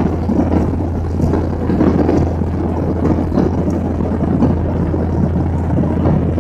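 Steady in-flight cabin noise of an airliner: a constant low engine drone under the even rush of airflow, heard from a window seat over the wing.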